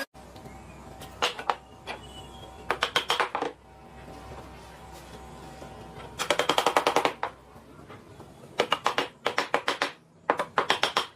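Short runs of rapid, sharp clicks or taps, several a second, coming five times over a faint low hum.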